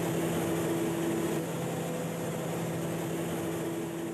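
Turboprop engine and propeller of an A-29 Super Tucano in flight, heard from inside the cockpit: a steady low drone with a couple of held tones over rushing air noise.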